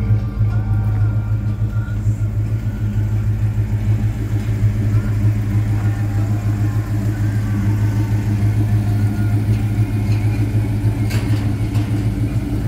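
1975 Chevrolet Caprice's engine idling at a steady speed, a constant low rumble.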